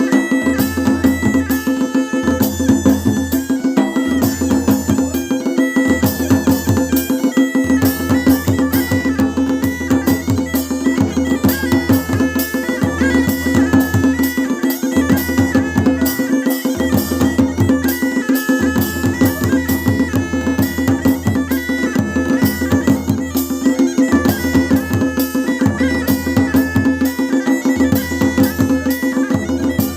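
Masakbeen, the Kumauni bagpipe, playing a melody over a steady drone, with dhol and damau drums beating a steady rhythm beneath it.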